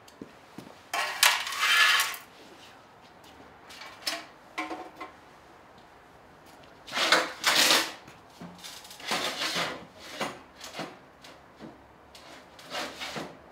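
Tools and parts being handled at a workshop bench: several scraping, rattling bursts about a second long, with a few light knocks between them.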